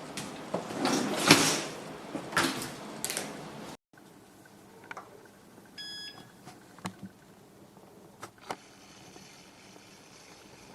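Loud scraping and rubbing of things being handled or shifted, for about four seconds. After an abrupt cut the sound is quieter, with a few sharp clicks and one short electronic beep.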